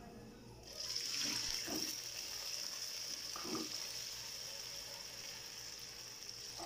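Milk poured into hot ghee and fried nuts in a frying pan, sizzling with a steady hiss that starts just under a second in, while a spatula stirs.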